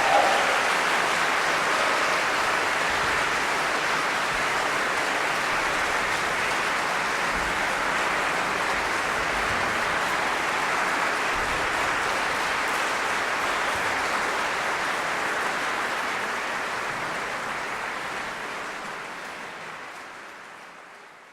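Audience applauding, an even clapping that holds steady and then fades out over the last few seconds.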